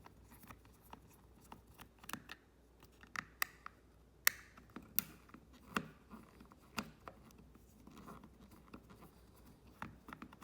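Small screwdriver backing two screws out of a plastic remote-control housing: irregular light clicks and scratching, with a few sharper clicks in the middle.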